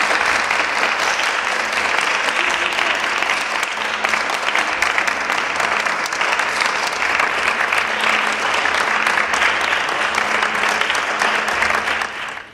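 A small group clapping their hands, a steady applause that cuts off suddenly near the end.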